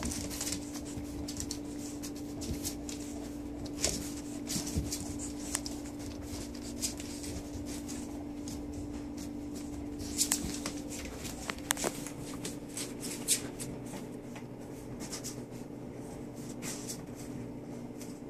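Standard poodle puppies nursing from their standing mother: irregular wet suckling clicks and rustling of bedding, over a steady low hum that stops about eleven seconds in.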